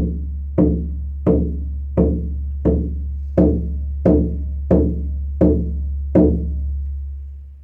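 18-inch elk-hide harmonic shamanic frame drum struck in a steady beat, about one stroke every 0.7 seconds. Each stroke has a sharp attack and a ringing overtone, over a deep low boom that sustains between strokes and fades away near the end.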